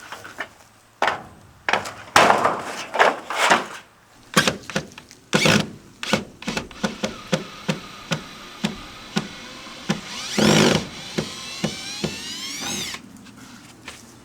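Demolition work on a wooden porch frame: a string of hammer blows and wood knocks, some sharp and some heavier. A creaking, rising squeal comes near the end.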